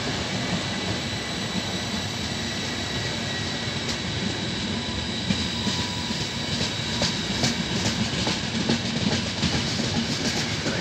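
Intercity passenger coaches rolling slowly through the station, with a steady rumble of wheels on rail. From about halfway through, the wheels click more and more often over rail joints and points.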